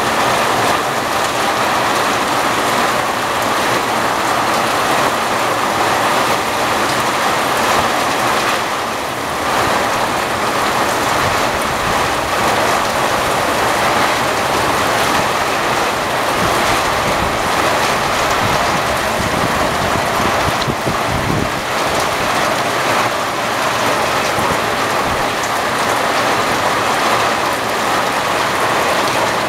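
Steady rain falling during a rainstorm, an even, constant hiss.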